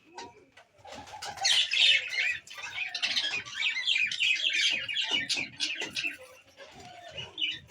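Chickens calling and chirping, many quick calls overlapping. The calls are busiest from about a second in until about six seconds, then thin out.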